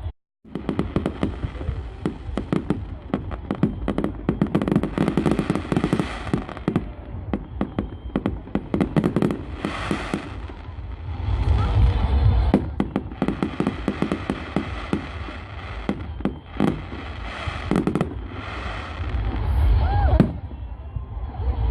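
Fireworks going off in a dense, rapid crackle of many small bangs, with heavier low booms and rumbling in places.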